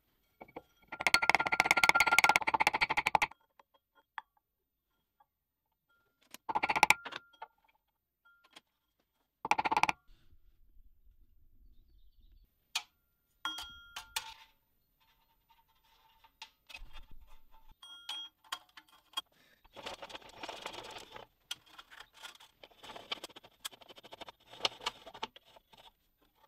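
Metal parts being handled on a steel frame: a band saw wheel and a band saw blade scraping, clinking and rattling in separate bursts, some with a short metallic ring, with short clicks in between.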